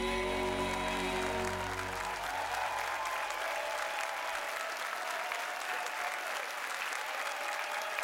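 A live band's final held chord rings out and fades over the first three seconds or so, as a studio audience applauds.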